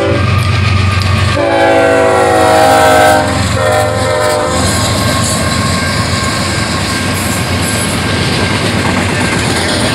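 Norfolk Southern diesel freight locomotives passing close by at a level crossing, the horn sounding about a second in and holding for about three seconds over the engines' low rumble. Then comes the steady rumble and clatter of double-stack container cars rolling past on the rails.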